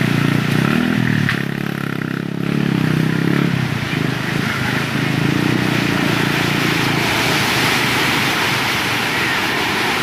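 Rough sea: a steady rush of wind and breaking waves, with a low hum underneath during the first few seconds.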